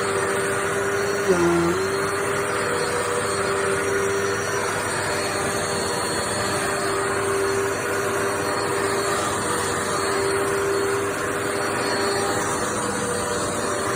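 Dirt Devil Multi-Surface+ upright bagless vacuum cleaner running steadily on its bare-floor setting, a constant motor hum and whine. About a second in there is a knock and the motor tone dips briefly before recovering.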